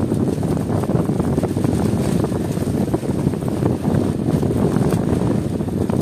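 Steady wind buffeting the microphone on a small boat at sea, a continuous low rumbling noise.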